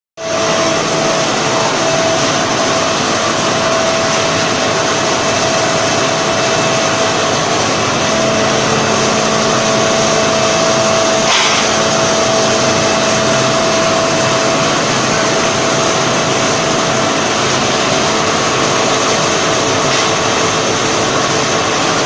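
Cupola furnace's air-blast blower running steadily: a loud, even rush of air with a steady whine. A brief click sounds about eleven seconds in.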